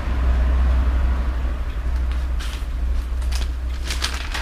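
Paper rustling as pages are handled, several short rustles in the second half, over a steady low hum.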